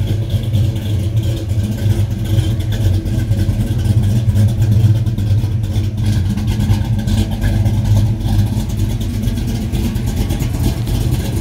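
The truck's 355 small-block V8, breathing through Hooker headers and dual exhaust, running steadily at a low, even speed with a deep exhaust note.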